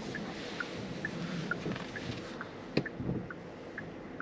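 Soft electronic ticks from the Genesis GV60's cabin chime, repeating about twice a second and alternating between two pitches, over low, steady cabin noise. A single sharp click comes near the end of the third second.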